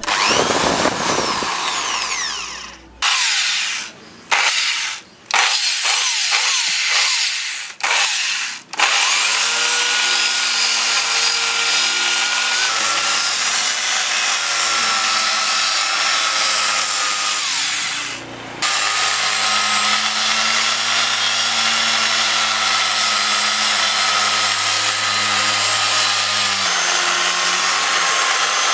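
An electric drill with a hole saw runs in several short stop-start bursts, the first winding down. Then an electric orbital finishing sander runs steadily on plywood, with one brief stop near the middle.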